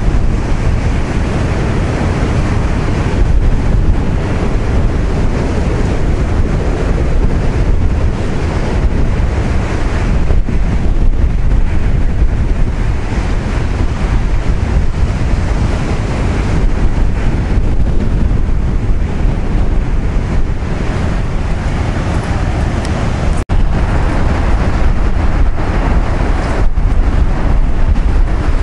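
Heavy winter-storm surf breaking and washing over a rocky shore, mixed with strong wind buffeting the microphone, steady throughout. The sound cuts out for an instant about five seconds before the end.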